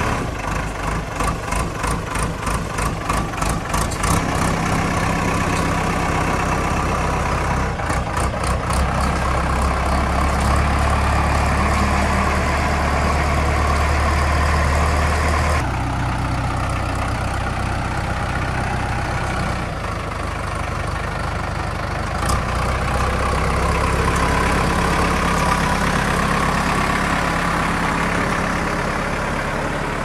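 Kirloskar diesel engine of a JCB 3DX backhoe loader running as the machine manoeuvres, pulsing in the first few seconds, then a steady heavy hum that eases off past the middle and picks up again a little later.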